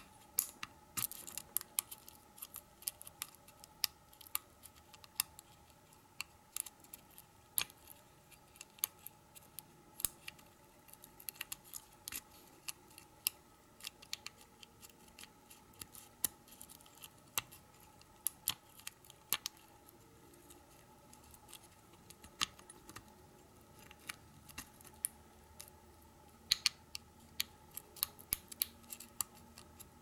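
Small, irregular metal clicks and scrapes of a hook pick and tension wrench working the pin tumblers of a Chateau C970 disc padlock.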